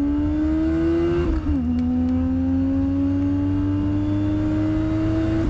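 A 2.3-litre pickup truck engine pulling hard under acceleration. Its pitch climbs steadily, drops at an upshift about a second in, then climbs again through the next gear. The pull is slow, "slow as hell".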